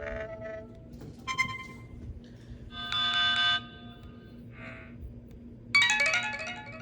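Android 4.0.4 (Ice Cream Sandwich) notification tones played one after another: a short ding, a brighter chime about three seconds in, a brief blip, and near the end a quick run of falling notes. A faint steady hum runs underneath.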